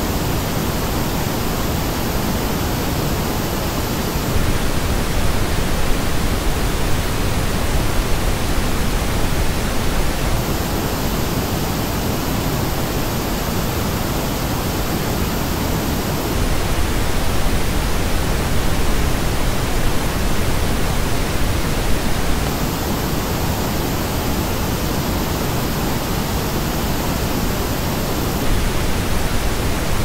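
Steady pink noise used as a headphone test signal. About every six seconds it switches between the flat reference and a version shaped by the Hifiman Sundara 2022 headphones' measured frequency response, which has a brighter, hissier top end with a dip just below it.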